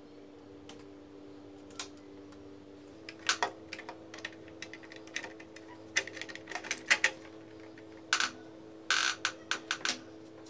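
Hard plastic clicks and knocks as an HP LaserJet transfer belt assembly is slid into the printer and pushed home. They come in irregular clusters from about three seconds in, over a faint steady hum.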